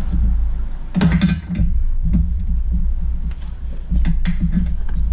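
A loud, low machine hum that drops out briefly twice, with sharp metallic clinks of tools against steel suspension parts, the sharpest about a second in.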